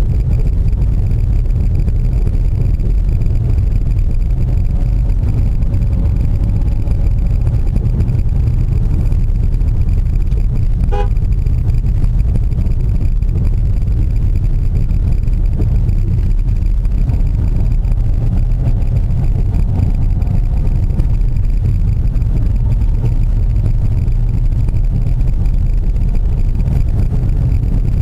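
Car engine and tyre noise, a steady low rumble heard from inside the cabin while driving, with faint rises and falls in engine pitch. A brief beep sounds about eleven seconds in.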